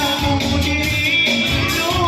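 Upbeat song with a singing voice, guitar and a steady beat.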